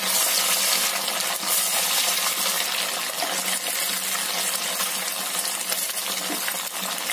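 Hot oil sizzling and crackling steadily as breadcrumb-coated slices of cornflour halwa deep-fry in a kadai.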